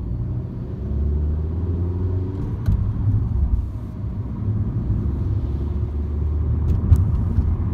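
MINI car driving, heard as a steady low engine and road rumble, with the engine note rising over the first couple of seconds as it accelerates. A few sharp clicks sound about three seconds in and near the end.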